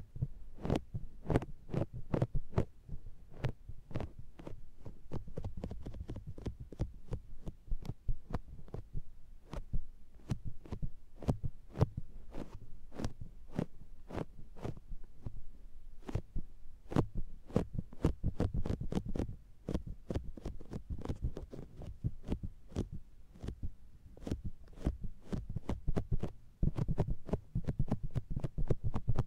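Makeup sponge patted against and pulled off the ears of an SR3D binaural microphone: rapid, irregular, sticky pats, several a second, each with a dull low thump.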